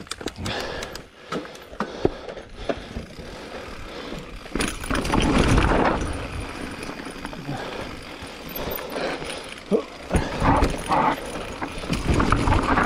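Specialized Turbo Levo e-mountain bike descending a rocky trail: tyres rolling and crunching over rock and dirt, with the frame and chain rattling and clacking over bumps. The rattle and knocks come louder about five seconds in and again over the last few seconds.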